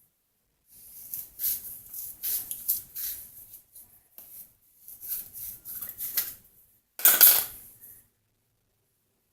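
Hard objects clattering and scraping in a few short bursts, the loudest about seven seconds in.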